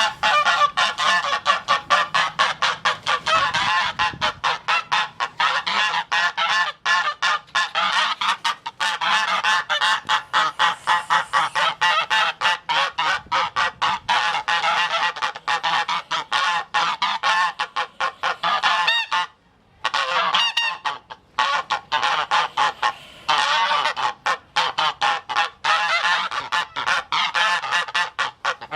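Goose honking over and over in quick succession, several loud calls a second, with a brief pause about two-thirds of the way through.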